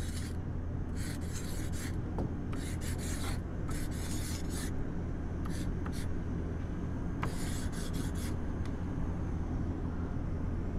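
Felt nib of a 10 mm paint-marker dripstick scraping across a weathered wooden board while writing a tag, in a series of short rasping strokes that stop about eight seconds in. A steady low rumble runs underneath.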